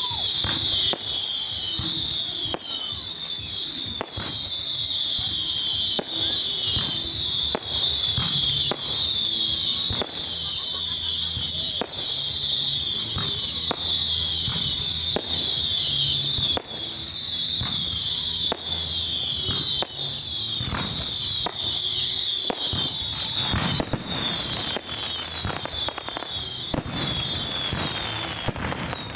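Fireworks display: a continuous dense high whistling made of many short overlapping falling whistles, with bangs going off throughout. The whistling dies away near the end.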